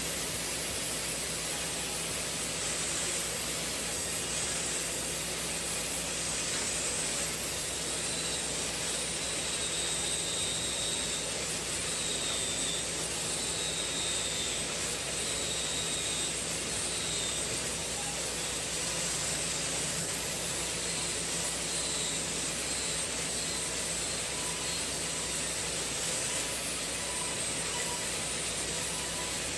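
Industrial vertical band saw running and cutting a log lengthwise, with other sawmill band saws running alongside: a steady hissing machine noise with no break.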